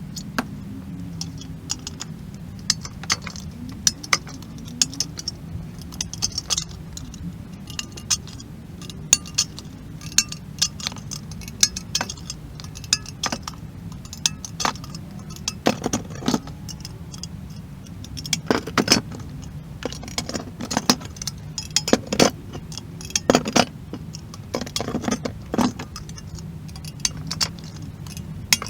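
Irregular metallic clinks and taps, as of metal pieces or tools knocking together, growing denser and louder in the second half, over a steady low hum.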